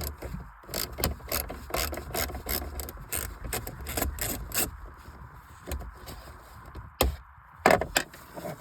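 T25 Torx screws being worked out of the dashboard display mount with a hand tool: a quick run of scraping, clicking strokes, then a sharp click about seven seconds in and a few more clicks near the end.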